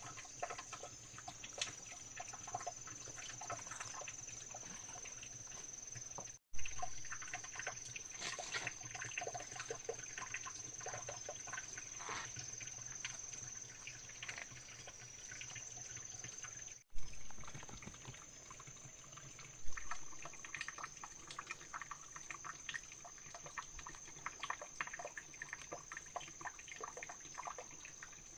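Water sloshing and trickling, with a dense patter of small splashes and clicks over a steady high-pitched whine.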